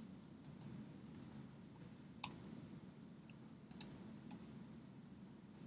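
A few faint, scattered clicks from a computer keyboard and mouse as lines of code are copied and pasted, over quiet room tone. The sharpest click comes a little over two seconds in.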